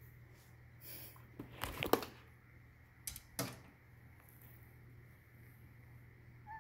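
A few light knocks and clicks: a small cluster about two seconds in, the loudest of them, then two more about a second later.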